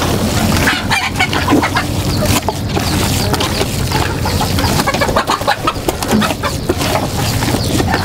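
Desi chickens clucking, over the wet squelch of chicken-feed mash being kneaded by hand in a plastic bucket.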